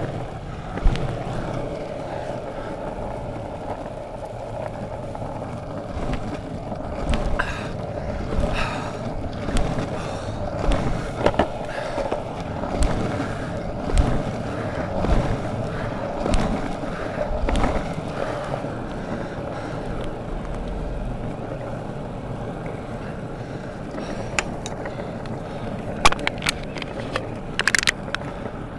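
Longboard wheels rolling on a rough tarmac path, a steady rumble. Through the middle stretch a foot kick-pushes against the ground about every second and a half. Near the end come a few sharp clicks.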